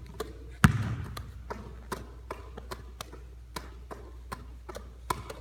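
Basketballs passed hand to hand around the waist: a quick, irregular patter of palm slaps on the balls, with one louder thud under a second in.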